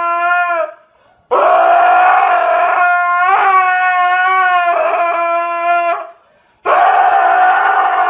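A dog howling in long, steady-pitched howls. One ends about half a second in, the next runs for nearly five seconds with a brief wobble in the middle, and a third begins after a short pause near the end.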